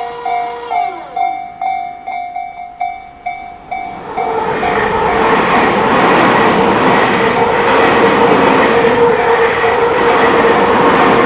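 Japanese level-crossing warning bell ringing at about two strokes a second. A held tone slides down in pitch and fades about a second in, and from about four seconds a train runs through the crossing with a loud steady rumble and rail noise while the bell keeps ringing.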